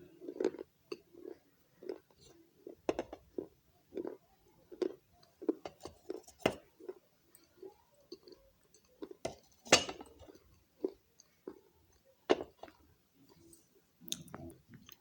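Close-miked chewing of clay: soft, irregular mouth sounds broken by sharp crunches as pieces crack between the teeth, the loudest crunch about ten seconds in.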